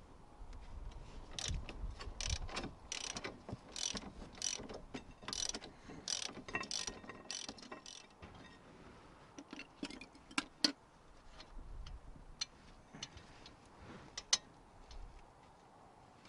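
Socket ratchet clicking in repeated strokes as the 16 mm bolts holding a Mini Cooper R55's rear brake caliper carrier are undone. The clicks come in quick runs for about the first half, then thin out to scattered clicks.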